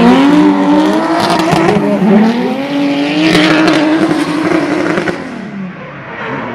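Nissan Silvia S14 and S15 drift car engines held at high revs through a slide, the pitch climbing at first and then wavering near the top, with tyre squeal over it. It fades away about five seconds in as the cars pull off.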